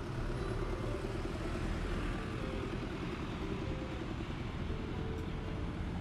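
Steady road traffic noise: motor vehicles running along a street.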